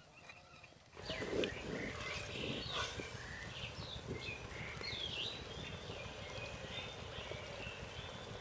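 Chicken curry bubbling in a clay pot over a wood fire, a steady low crackle and bubbling starting about a second in, with many birds chirping in short calls throughout.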